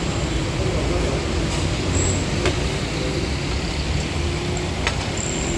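Steady low rumble of street traffic noise, with a couple of faint clicks.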